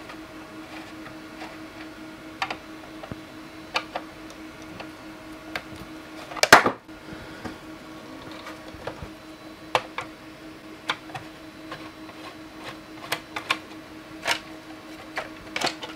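Scattered clicks and knocks of a moving-head light's plastic housing being unscrewed with a screwdriver and handled, with one louder clack about six and a half seconds in and another near the end. A steady faint hum runs underneath.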